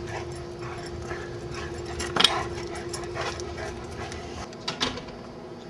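Dogs playing, with a sharp knock about two seconds in and two smaller knocks near the end.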